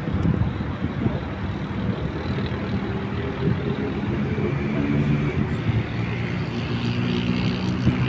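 City traffic ambience with a steady engine drone that builds from about three seconds in and grows louder toward the end.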